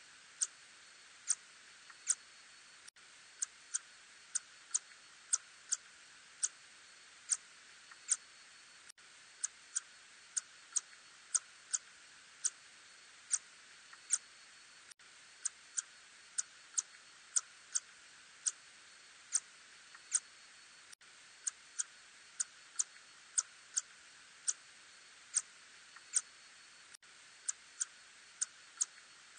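Ussurian tube-nosed bat echolocation calls, heard as short sharp clicks coming irregularly at about one to two a second over a steady hiss.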